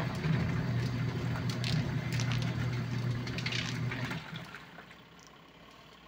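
Mini top-load washing machine running its wash cycle: a steady motor hum with water churning in the tub, which stops about four seconds in.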